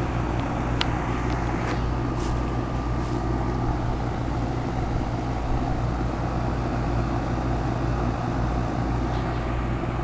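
2008 three-ton Goodman packaged heat pump running in heat mode: a steady, very quiet compressor hum under the whoosh of the outdoor fan. A few faint clicks come in the first couple of seconds.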